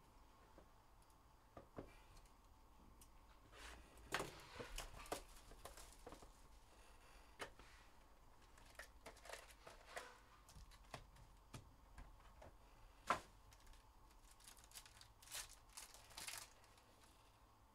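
Faint, scattered crinkling and tearing of foil trading-card pack wrappers being opened by hand, with cards handled. The rustles come in a few clusters, and there is one sharp tick about thirteen seconds in.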